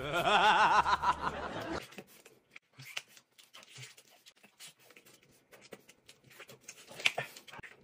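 Soft, scattered chewing and mouth clicks of a man gnawing meat off a pig's trotter held in his hands. A short wavering, voice-like sound comes first and stops before the second second.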